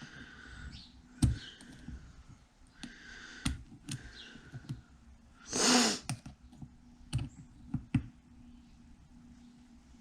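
Small metal turbocharger parts clicking and knocking against each other and the workbench as they are handled and fitted, in a few irregular taps. A short, loud hiss a little past halfway.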